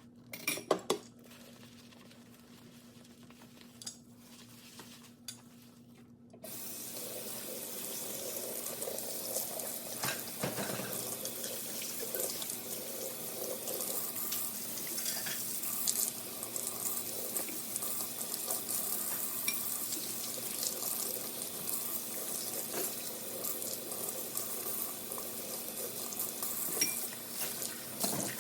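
A few dish and cutlery clinks, then about six seconds in a tap is turned on and water runs steadily into a sink, with occasional clatter of dishes being washed.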